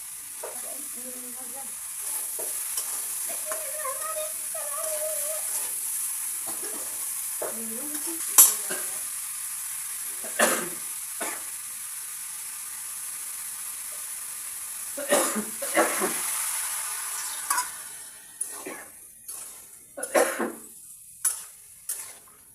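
Potatoes and cauliflower frying in oil with a steady sizzle, a spatula stirring and scraping against the pan with a few sharp clinks. The sizzle dies away over the last few seconds.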